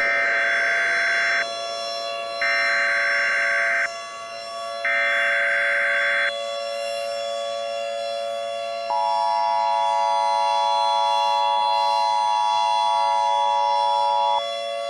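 Emergency Alert System broadcast tones: three short buzzing bursts of SAME header data, each about one and a half seconds long, then the two-tone attention signal sounding steadily for about five and a half seconds. A steady droning hum runs underneath throughout.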